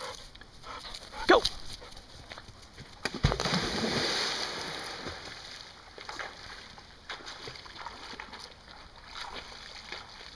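A dog leaps into a river with a loud splash about three seconds in, followed by a couple of seconds of rushing, churning water as it dives under, then smaller splashes. A short sharp cry comes about a second in, before the leap.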